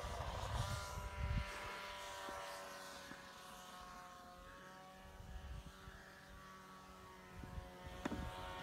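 Snowmobile engine running, heard faintly as a steady drone with several even tones, with a few low rumbles and a short click near the end.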